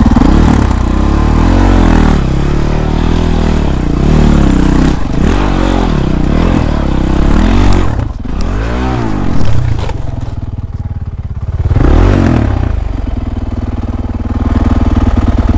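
Dirt bike engine close to an on-board camera, revving up and falling back over and over as the bike climbs rocky ledges. It drops low for a moment, rises once more, and settles to a steady idle for the last few seconds.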